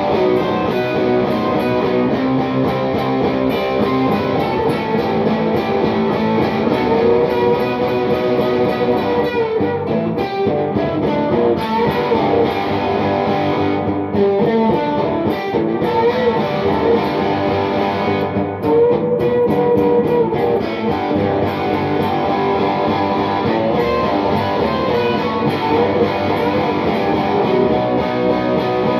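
Solid-body electric guitar played through an amplifier, with held notes and a few bent notes.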